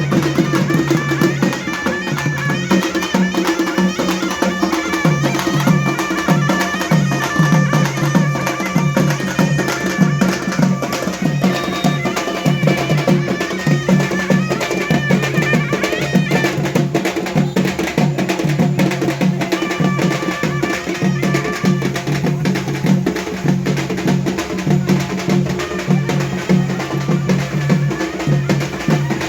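Traditional music with steady, rhythmic drumming.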